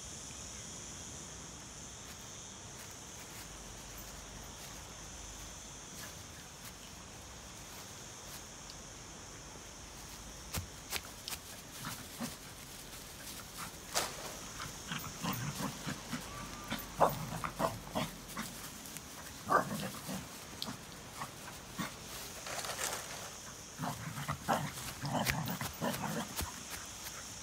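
Kerry Blue Terrier playing: from about ten seconds in, short low dog sounds come in quick bursts, mixed with knocks and rustling as it runs and scuffles about. Before that only a steady high hiss is heard.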